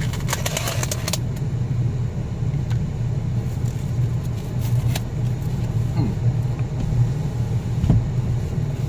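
Steady low hum of a car engine idling, heard from inside the closed cabin. Plastic crackles in the first second and a few light clicks later come from a takeaway foam food box and its wrapping being handled.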